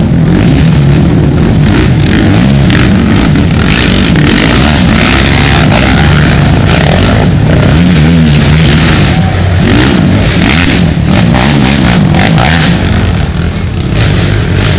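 Racing ATV engines revving hard and changing pitch as quads pass close by, loud throughout, with gravelly scraping and spatter between about 4 and 13 seconds in.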